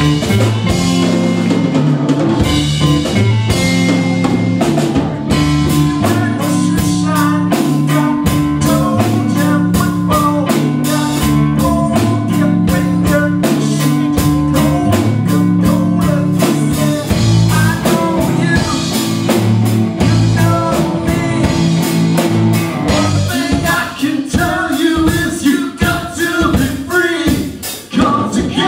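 Live rock band playing: a drum kit keeps a steady beat under electric guitars, bass guitar and keyboard. Near the end the held chords break into short, choppy stabs.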